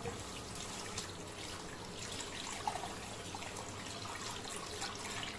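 Tap water running steadily into a bowl of raw rice as it is washed by hand, the stream splashing on the grains and water.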